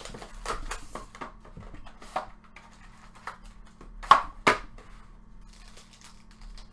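A cardboard trading-card box and a foil-wrapped card pack handled on a table: scattered taps and rustles, with two louder knocks about four seconds in, half a second apart, and faint foil crinkling near the end.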